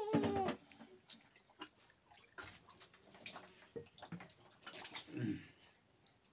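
A baby's short coo at the very start, then scattered faint clicks and small knocks.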